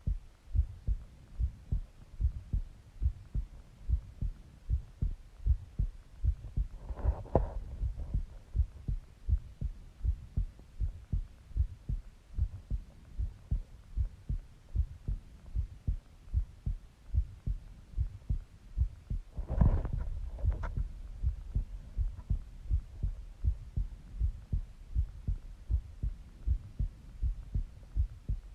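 Human heartbeat heard up close through the chest: a steady, even run of low thumps. Two brief louder noises, each reaching higher in pitch, come about 7 seconds in and again about 20 seconds in.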